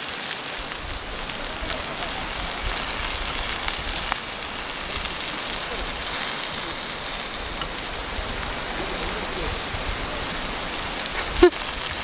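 Pork belly and leek sizzling on a hot grill plate, a steady hiss, with one sharp metal clink near the end.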